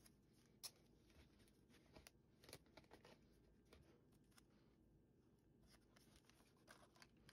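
Near silence, broken by a few faint clicks and taps of painter's tape being handled and pressed onto a cardboard model.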